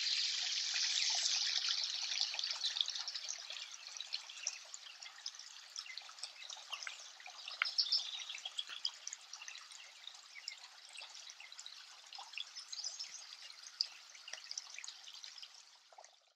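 A shallow, stony creek trickling over rocks: a steady dense patter of small splashes and drips, louder at first and growing fainter, then cut off suddenly near the end.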